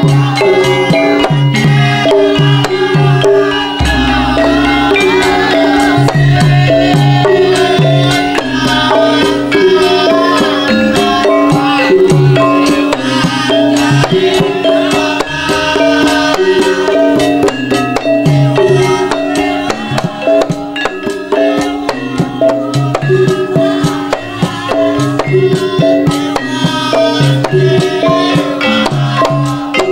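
Live Javanese gamelan music for a Lengger dance: metal-keyed instruments play repeating melodic patterns over steady kendang hand-drum strokes, continuously.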